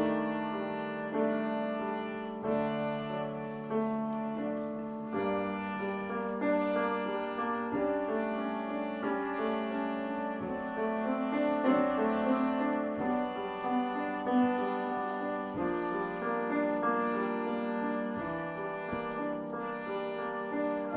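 Small violin played by a young child, a slow melody of held notes, with grand piano accompaniment.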